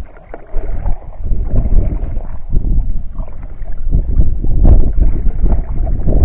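A canoe being paddled across open water, with wind buffeting the microphone in an uneven low rumble.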